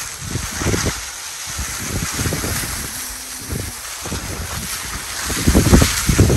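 Wind buffeting the microphone in uneven gusts, a deep rumble that rises and falls.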